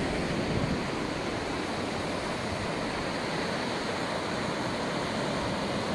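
Surf washing onto a sandy beach, a steady rush of noise, with wind buffeting the microphone.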